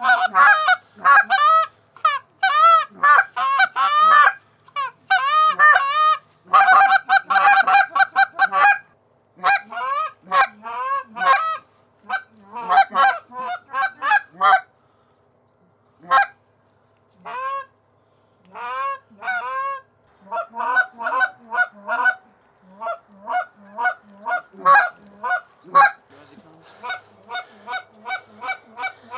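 Loud goose honks and clucks, repeated over and over in fast runs with brief pauses.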